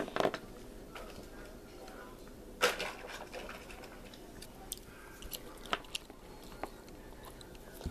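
Faint handling noises of small plastic toy figures being moved on a tabletop: a brief rustle about three seconds in, then a few light clicks.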